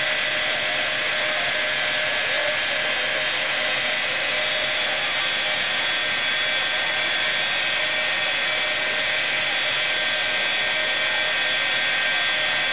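Jet truck's turbine engine running steadily, a loud even rush with high steady whining tones held over it.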